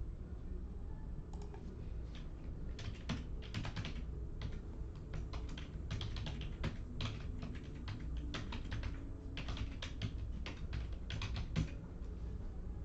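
Typing on a computer keyboard: irregular runs of quick key clicks with short pauses between them, over a steady low hum.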